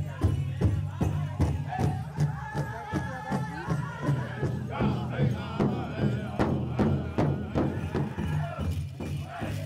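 Powwow drum group: several men beating one large shared drum in a steady, even beat while singing high, wavering chant lines.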